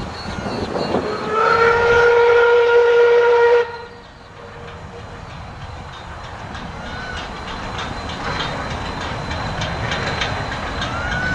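Steam whistle of C17 967, a Queensland C17-class steam locomotive, sounding one long blast of about two and a half seconds that cuts off suddenly. The train's running clatter follows, a regular rhythm that slowly grows louder.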